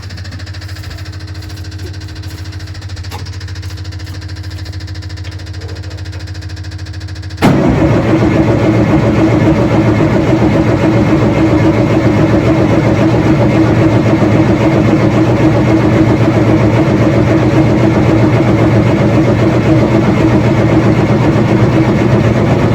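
Rebuilt Nissan Micra four-cylinder engine being turned over on its starter motor with the spark plugs out, to build up oil pressure: a steady, even cranking without firing that cuts in suddenly about seven seconds in. Before it, a lower steady hum.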